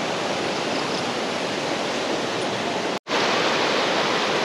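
A river rushing steadily. The sound drops out for an instant about three seconds in, then resumes.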